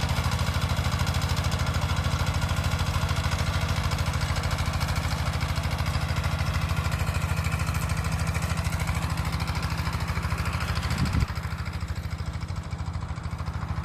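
A small engine running steadily at a fast, even idle; about eleven seconds in there is a brief knock and it drops a little in level.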